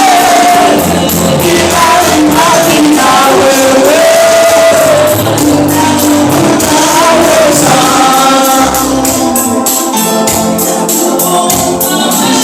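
Swahili gospel worship song: a choir singing with band accompaniment and bass, over a steady percussion beat that comes in more strongly about halfway through.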